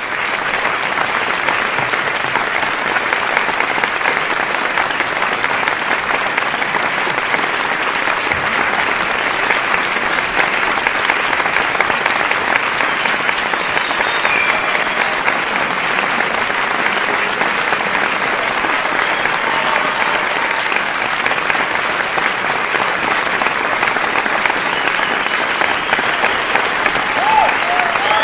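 A crowd applauding: a dense, steady wash of many hands clapping, swelling up right at the start.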